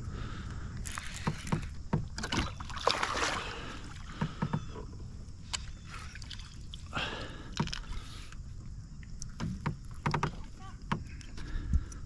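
A bass splashing at the surface as it is netted beside a fishing kayak, with two main bursts of splashing, one about a second in and another near the middle. Sharp clicks and knocks of the landing net and rod against the kayak are scattered throughout.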